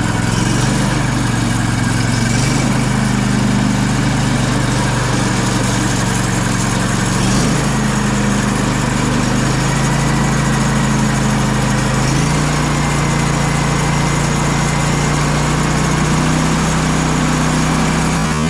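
A sawmill's engine running steadily under power, its pitch stepping up four times as it speeds up.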